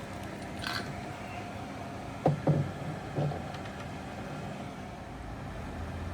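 Steady background hum, with a brief rustle about a second in and three short knocks, two close together and a third about a second later.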